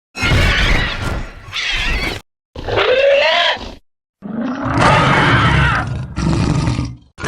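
A run of short vocal sound-effect clips from cartoon characters: growls, grunts and yells, about four in a row, each cut off sharply with a brief silence before the next.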